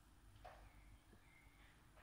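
Near silence: room tone, with one faint soft rustle about half a second in.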